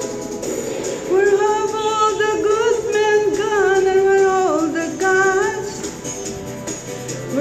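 A woman singing into a handheld microphone over recorded backing music, a long line with held, bending notes starting about a second in and dropping away near six seconds, when only the backing music carries on.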